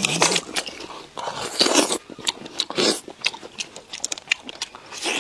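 Close-miked eating of stir-fried clams: chewing and wet smacking with many short, sharp clicks as the clam meat is taken from the shells.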